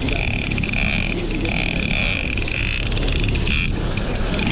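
A boat engine runs steadily under a high whine that comes and goes every second or so, as a Shimano Tiagra 50W lever-drag reel works against a hooked bluefin tuna.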